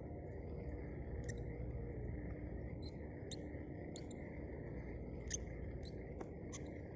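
Outdoor background sound: a steady high-pitched drone and a lower steady hum, with short high chirps about once a second, over a low rumble.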